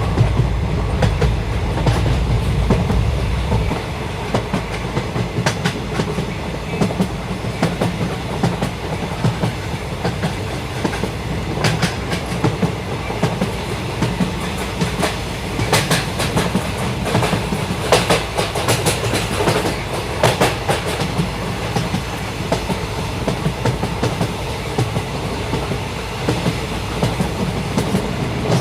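Passenger train coach running along the track: a steady rumble of wheels on rail, with clusters of clickety-clack as the wheels cross rail joints. The low rumble is heavier for the first few seconds.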